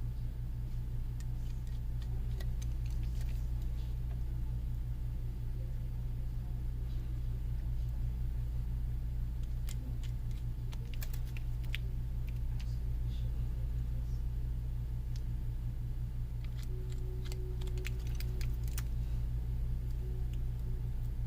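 Light clicks and taps of small repair tools and parts on a phone being taken apart, clustered about ten seconds in and again near the end, over a steady low hum.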